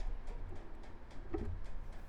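Bicycle freewheel hub ticking evenly, about four clicks a second, as the bike coasts, over a fading low rumble of traffic.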